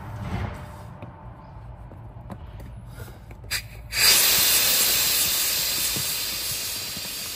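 Air hissing out through an opened valve on an inflatable boat's tube. The hiss starts suddenly about four seconds in, after a couple of clicks, and slowly fades. The tube is being partly deflated so a bench seat can be fitted.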